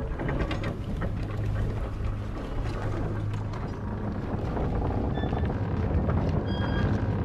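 A steady low rumble with a rushing, crackly noise over it.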